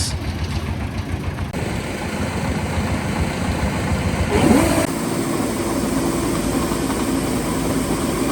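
Engine of a three-wheeled farm vehicle running steadily. About halfway through, its pitch rises briefly and then settles into a steady hum.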